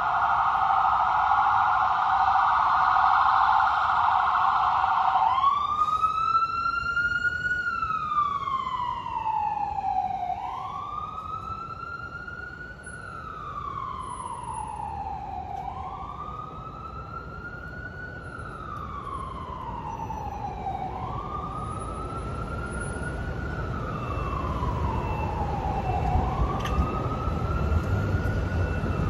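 Emergency vehicle siren: a rapid yelp for about the first five seconds, then a slow wail that rises and falls about every five seconds, fading somewhat through the middle. Low traffic rumble grows near the end.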